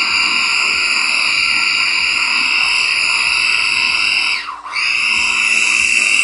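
KitchenAid mini food chopper's motor running steadily, grinding soaked red lentil falafel mixture. About four and a half seconds in the whine drops away and spins straight back up.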